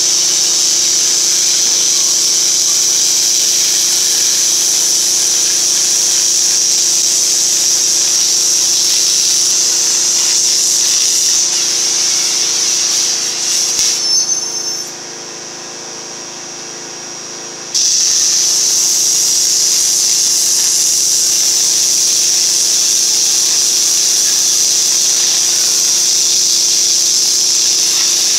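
Oxy-fuel cutting torch hissing steadily as it cuts through steel plate, over a steady low hum with a faint regular pulse. About halfway through, the hiss stops for a few seconds, then comes back abruptly as cutting resumes.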